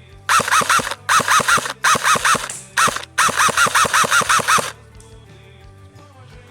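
Airsoft electric gun firing full-auto bursts, about six or seven shots a second, in four or five strings with short pauses between.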